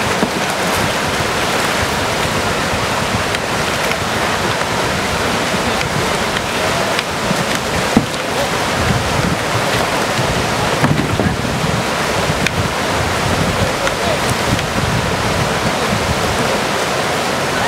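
Whitewater rapid rushing steadily, with loud churning and splashing water. A sharp knock stands out about eight seconds in.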